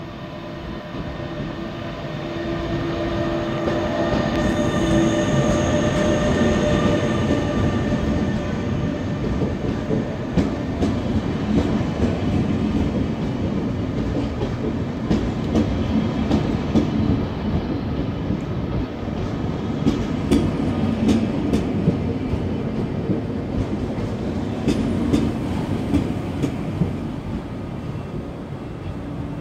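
Intercity 2 double-deck train, led by a DB class 146 electric locomotive, pulling in along the platform. A steady whine sounds as the locomotive passes in the first several seconds. Then the coaches go by in a loud rolling rumble, with repeated clicks of the wheels over rail joints.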